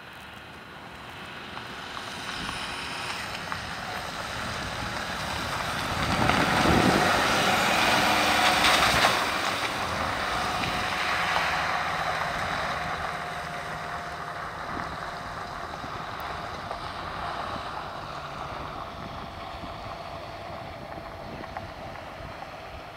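British Army Pinzgauer 6x6 utility vehicle driving past on a wet gravel track: its engine and its tyres hissing and splashing through the puddles grow louder, peak about six to nine seconds in, then slowly fade as it pulls away.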